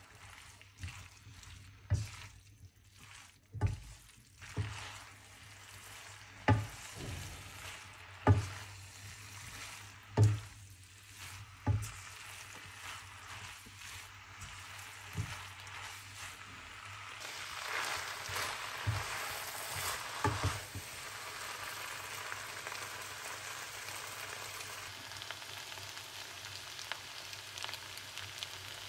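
Chow mein noodles and chicken sizzling in a wok as a spatula stirs and tosses them, knocking against the pan every couple of seconds. From a little past halfway the knocks thin out and a steadier frying sizzle takes over.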